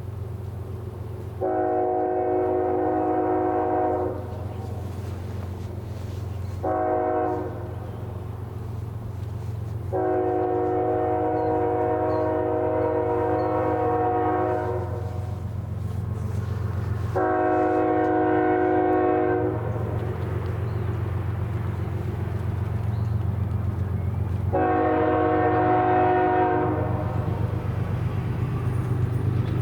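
Diesel freight locomotive's multi-chime air horn sounding five blasts (long, short, then three long ones) over the steady low rumble of the locomotive engines. The rumble grows slightly louder near the end as the train draws closer.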